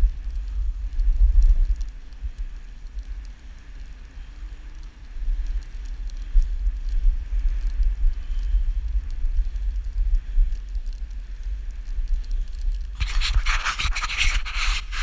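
Dog sled gliding over snow: a steady low rumble with a faint scraping hiss from the runners. Near the end comes a loud scratching rustle of fabric rubbing against the camera.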